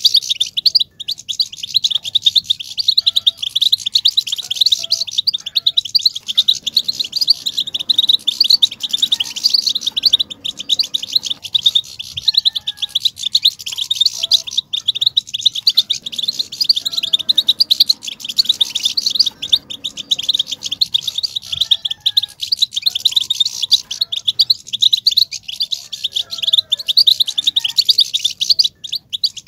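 European goldfinch twittering: a fast, unbroken stream of high chirps and trills, the excited 'bitbita' chatter that stirs male goldfinches into song.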